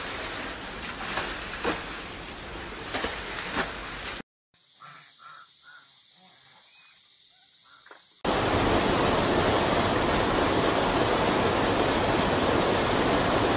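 Floodwater in three cuts. First, water splashing and sloshing with sharp splashes as it is bailed out with a bucket. Then a quieter stretch with a high hiss. From about eight seconds in, a loud steady rush of water pouring down a flooded concrete stairwell.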